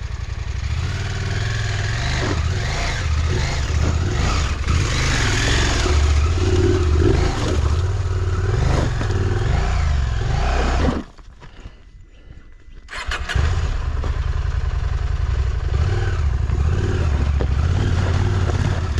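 KTM 1290 Super Adventure R's V-twin engine running and revving unevenly as the bike is worked up a rocky climb. The engine cuts out about eleven seconds in and starts again about two seconds later.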